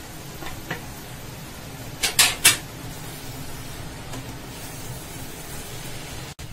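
Wooden spatula scraping and knocking against a kadhai as noodles are tossed and stir-fried, with a quick cluster of about three sharp knocks about two seconds in, over a steady hiss.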